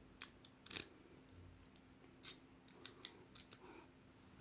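Faint, irregular metallic clicks and ticks of a lock pick and tension wrench being wiggled inside a Master Lock padlock's keyway, about eight in all, mostly in two small clusters.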